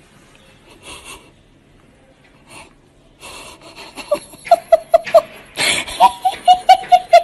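Person laughing hard: breathy, high-pitched wheezing laughter in quick rhythmic bursts, starting about three seconds in and growing loud toward the end.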